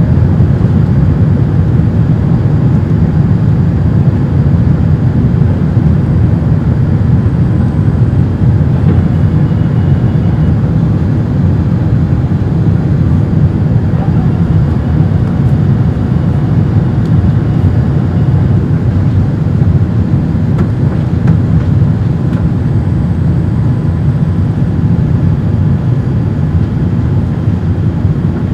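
Steady, loud low rumble of engine and airflow noise inside the cabin of a Boeing 787-8 airliner with GE engines in flight.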